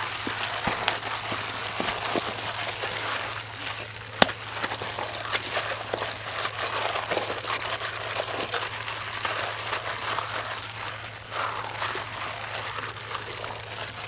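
A plastic-gloved hand kneading whole raw chickens in a wet marinade in a metal bowl: the plastic crinkles and the meat squishes, with scattered clicks and one sharper knock about four seconds in.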